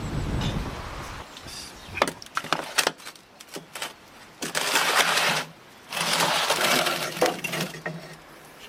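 Metal baking tray clanking at the mouth of a wood-fired brick oven, then scraped twice across the oven's brick floor as it is pushed in with a metal peel. Wind buffets the microphone at the start.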